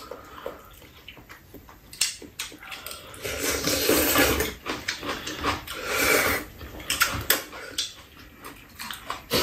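Ramen noodles being slurped, in two long slurps a few seconds in, with chopsticks and spoons clicking against bowls now and then.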